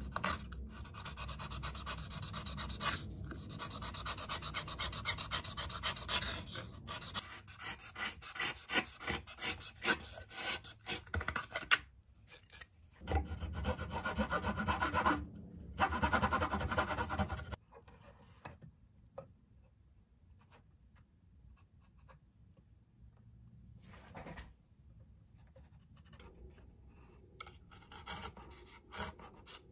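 Hobby-knife blades carving and shaving balsa wood in runs of quick scraping cuts. The cutting stops for a long quiet stretch with a few small ticks, then starts again near the end.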